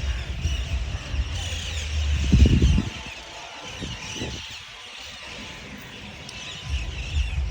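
Large flock of parrots and crows calling, many overlapping high squawks and chirps at once, over a low rumbling noise that drops away about three seconds in and comes back near the end.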